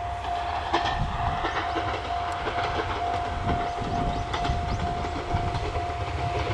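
Railway level crossing alarm ringing, a single electronic ding repeating about two to three times a second, as a train approaches. A low rumble runs underneath.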